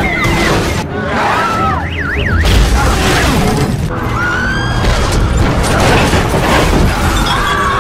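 Film sound mix of a street rampage: people screaming and crying out as they flee, over heavy booming rumble and crashes, with score music underneath.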